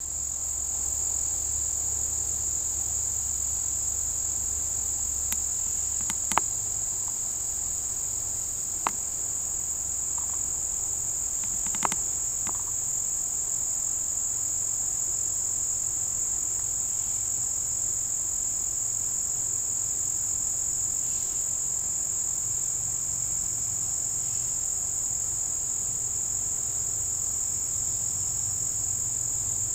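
Steady, unbroken high-pitched chorus of insects, with a few short clicks between about six and twelve seconds in.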